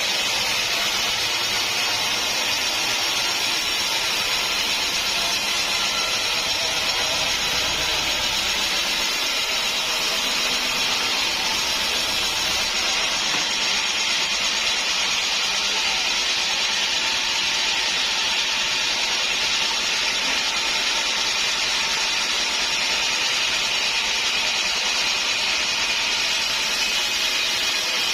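Sawmill blade cutting through a hard acacia wood stump: a steady, high cutting noise that runs on without a break.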